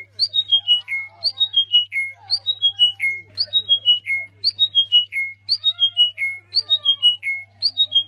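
A small caged songbird sings a cascade of five or six clear whistled notes that step down in pitch. It repeats the phrase about once a second, some eight times over.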